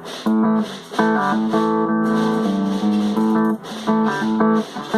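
A 1994 Stratocaster electric guitar played through an amp on its bridge pickup: chords and picked notes ring clearly and change every second or so, with a few short breaks.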